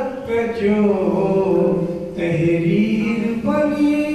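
A man's voice chanting a naat, a devotional poem in praise of the Prophet, in long held melodic notes, with a short break for breath about two seconds in.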